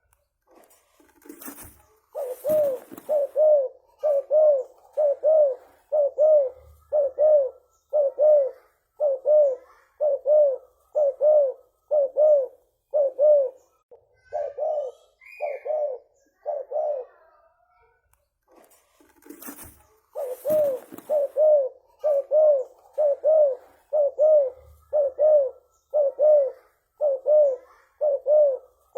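Spotted dove (tekukur) cooing: long runs of quick, evenly repeated low coos, about two a second, in two bouts with a pause of a few seconds between them. Each bout opens with a short noisy burst.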